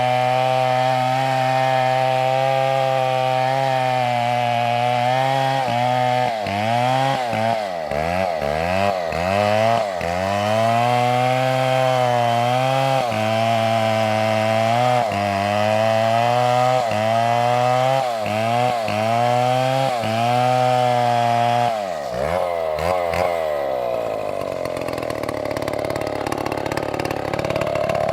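Two-stroke chainsaw running at high revs while cutting wood. Its pitch dips and recovers again and again from about six seconds in, and a few seconds before the end the engine slows and the sound turns rougher and less even.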